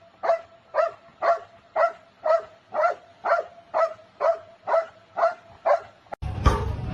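A dog barking over and over at a steady pace, about two short barks a second, each bark much like the last.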